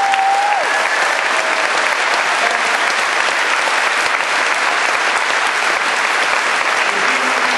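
Large crowd applauding steadily, with one voice giving a short held call at the start.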